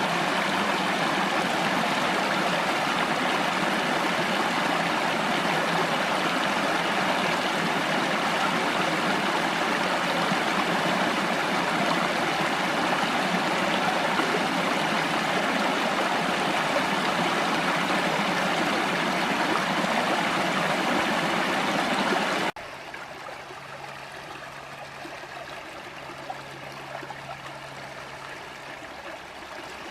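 Creek water running steadily over rocks, a dense, even rush; about two-thirds of the way through it cuts off abruptly to a much quieter, softer flow of water.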